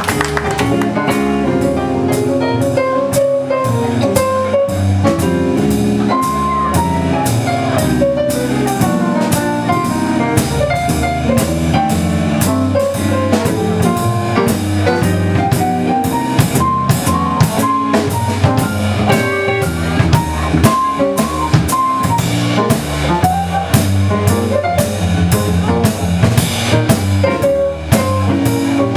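A band playing, with a drum kit keeping a steady beat under a stepping melody line.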